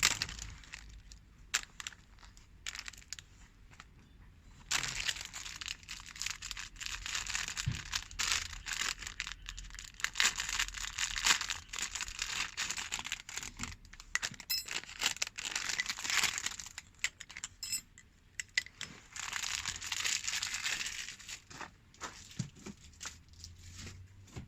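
Dry tinder being crumpled and torn by hand in several stretches of crackly rustling, with sharp snaps in between.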